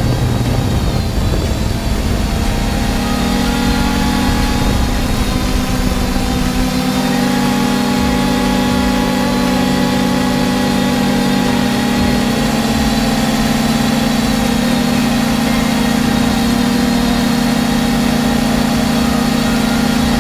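Force1 F100 Ghost quadcopter's motors and propellers humming steadily. The pitch shifts a little over the first few seconds, then holds.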